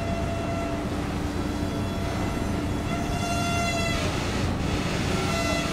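Steady low rumble of the ferry's diesel engines as it comes in to berth. A high, ringing squeal-like tone comes and goes over it, loudest in the middle.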